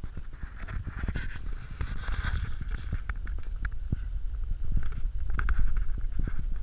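Rumbling wind and handling noise on a GoPro's microphone as the camera is moved, with irregular knocks and scuffs throughout.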